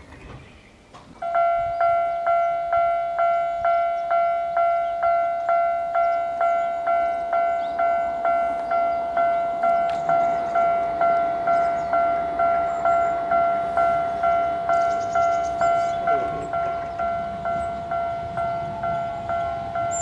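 Japanese level-crossing warning bell ('kan-kan') starting about a second in and ringing steadily at about two strikes a second in two tones, signalling an approaching train as the crossing barriers come down.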